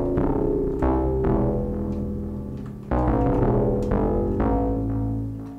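Serum software synthesizer playing the 'BA Thaw' dark ambient bass preset: deep, sustained bass notes, with new notes struck in the first second and again about three seconds in, the sound then fading slowly near the end.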